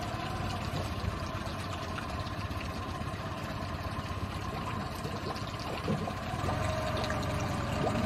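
A steady motor hum over a wash of running water, growing a little louder near the end.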